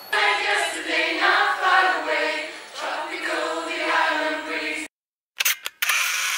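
Singing voices holding drawn-out notes, cut off abruptly just before five seconds in. After a short silence come two or three sharp clicks and a brief loud burst near the end.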